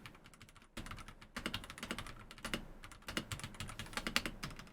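Typing on a Marvo KG972W gasket-mount mechanical keyboard as a sound test. Its keys clack in quick runs with short pauses between them, starting about a second in.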